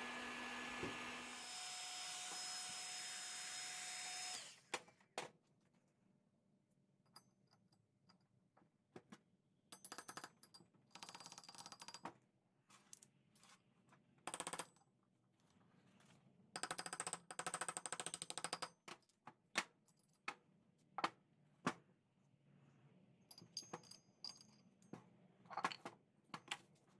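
Small metal parts and hand tools being handled and set down on a workbench: scattered clicks and clinks with short scraping or rustling bursts. For the first four seconds a steady noise with a few held tones runs, then cuts off suddenly.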